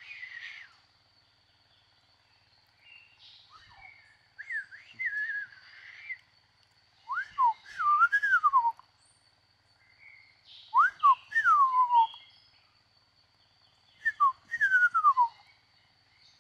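A songbird repeating a whistled song, four phrases of slurred notes that rise and then fall, one every few seconds. A faint steady high whine runs underneath.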